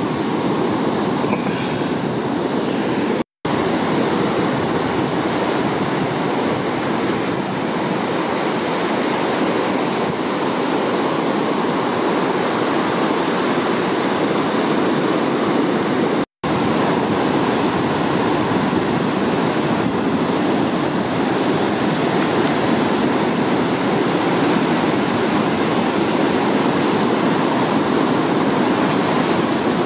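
Ocean surf breaking and washing in whitewater, a steady rushing noise. It cuts out for an instant twice, about three seconds in and again near the middle.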